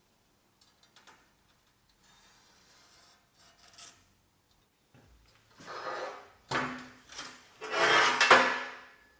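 Rasping scrapes of metal being worked at a fabrication bench: quiet at first, then three or four strokes in the second half, growing louder toward the end.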